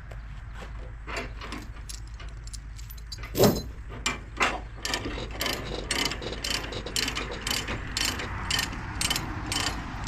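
Repeated ratcheting clicks, about two to three a second, as a ratchet mechanism is worked by hand, with a single loud knock shortly before the clicking settles into its rhythm.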